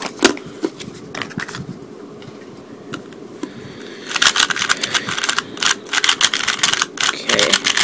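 A cardboard cube box is handled with a few light clicks and rustles. About four seconds in, a new stickerless plastic 3x3 speed cube, not yet lubricated, is turned quickly: a dense run of rapid clicking as the layers snap past each other.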